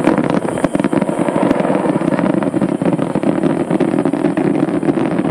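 Fireworks barrage: a dense run of rapid crackling bursts over a steady rumble.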